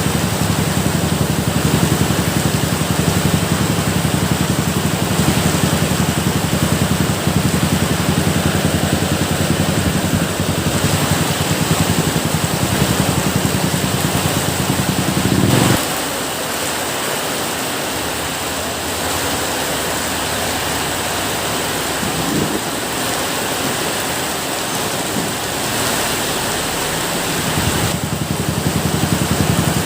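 Steady rain, an even hiss, with a low rumble underneath that cuts off abruptly a little past halfway and comes back near the end.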